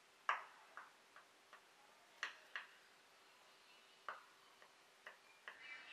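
Metal offset spatula clicking against a glass baking dish as it cuts down through a chilled whipped-cream pudding: about ten light, sharp, irregularly spaced clicks, the loudest a quarter of a second in.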